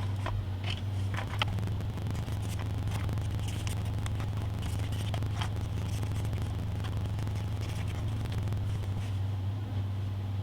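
Pastel chalk being rubbed or brushed onto a model's surface: faint, irregular scratchy strokes, over a steady low hum.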